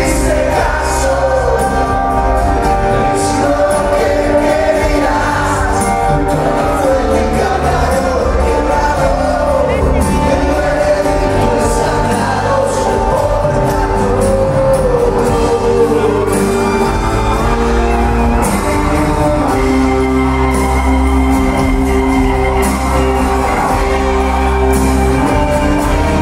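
Live rock band playing in a large hall, with a male lead singer over acoustic and electric guitars and drums.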